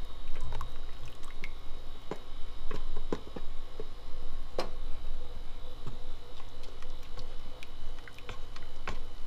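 Heavy cream poured into a stainless steel pressure-cooker pot and stirred in with a wooden spoon: wet squishing, with irregular scrapes and taps of the spoon against the pot, over a steady low hum.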